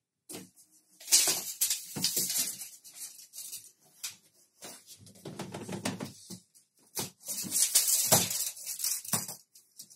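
Irregular knocks, scrapes and rustling from handling a tape measure and working against the panels.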